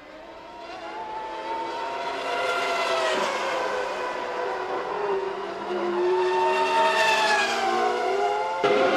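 Formula One race cars running at high revs and passing by, their engine notes rising and falling in pitch as they come and go, with several engines overlapping. The sound grows louder twice, and shifts abruptly just before the end.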